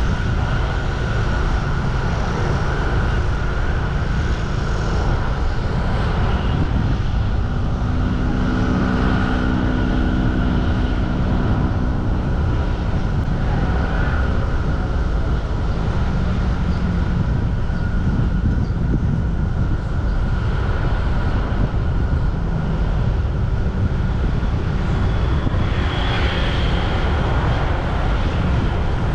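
Road traffic passing continuously, a steady mix of engine and tyre noise, with one vehicle's engine drone standing out from about 8 to 12 seconds in and a louder passing swell near the end.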